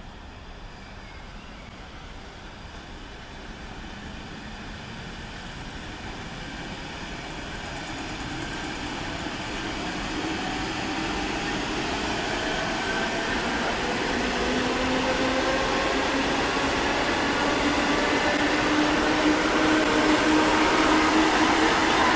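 ET2M electric commuter train coming closer and running past, growing steadily louder over a rumble of wheels on rail. From about eight seconds in, a motor whine rises in pitch as the train gathers speed.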